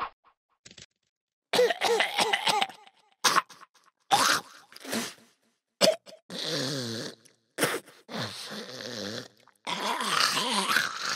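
A cartoon alien's wordless vocal noises: a string of coughs, grunts and groans, with a long wavering groan about six seconds in and more groaning near the end.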